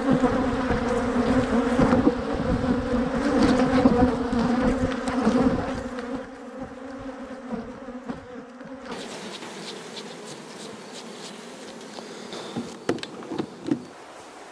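Honeybees swarming close around an opened hive frame, a dense steady buzz that is loud for the first several seconds, then thins out. After it, quieter outdoor ambience with a few sharp knocks near the end.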